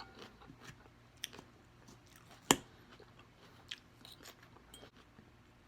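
A person chewing and eating close to the microphone: small wet mouth clicks and soft crunches, with one sharp, loud click about two and a half seconds in.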